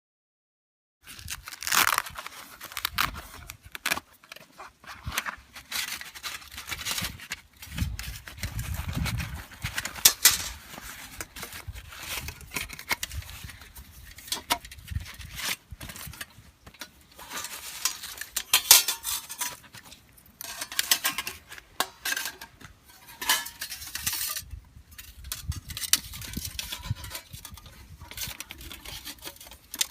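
Hands at work preparing a small fire: irregular tearing and crinkling, like hemp rope being pulled apart into tinder, mixed with light metal clinks and clatter from a small metal fire pit, in short bursts with pauses.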